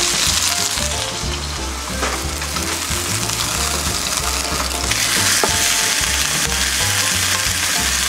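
Chicken frying in a frying pan, sizzling steadily, with the skin side browning to crisp. Background music plays underneath.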